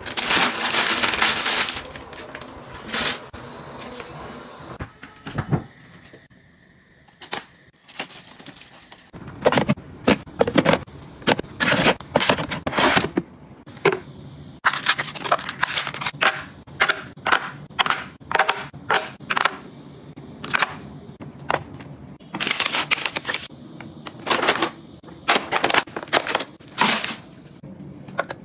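Plastic bag crinkling loudly around a new shower pouf for the first couple of seconds. Later come many short clicks and knocks of small household items being handled and set down, among them a clear plastic battery storage case.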